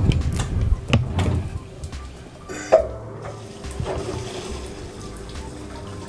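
Water running into the drum of a Samsung top-loading washing machine as it fills for a wash, flowing strongly now that the water inlet has been cleaned. A few knocks in the first two seconds and one sharp click about halfway through.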